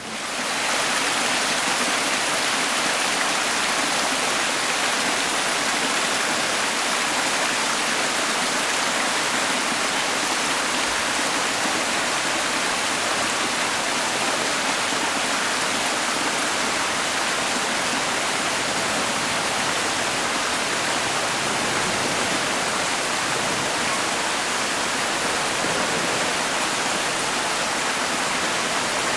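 Steady rush of water falling and splashing into a pond.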